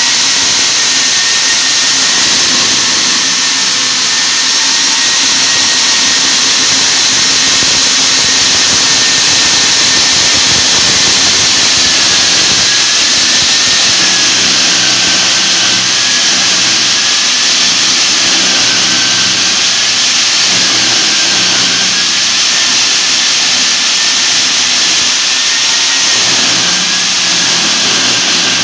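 Stand-mounted diamond core drill running steadily, its electric motor whining while the water-fed core bit grinds through a concrete floor slab. The whine wavers and sags slightly in pitch as the bit is fed under load, over a dense grinding hiss.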